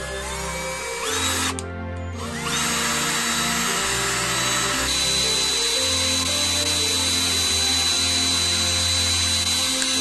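Handheld power drill boring into a Christmas ornament. The motor whines up to speed, stops briefly about a second and a half in, then spins up again and runs steadily. Background music plays underneath.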